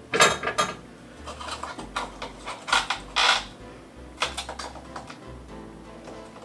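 Kitchen utensils being handled on a countertop: a scatter of sharp clicks, clacks and knocks, the loudest about a quarter-second in and again around three seconds in.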